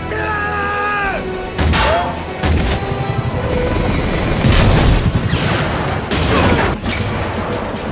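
Film battle sound mix: an orchestral score over the noise of a gunship's rotors, with sharp impacts and booming explosions, loudest in the second half as a grenade blows up the gunship's rotor fan.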